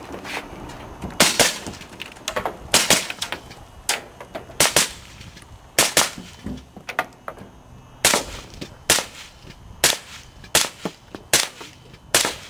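Suppressed MK12 5.56 mm rifle fired in a fast string of about fifteen shots, roughly one or two a second and now and then two in quick succession.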